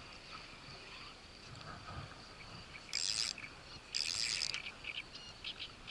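Insects chirring in a steady high drone, with two short, louder high rasps about three and four seconds in.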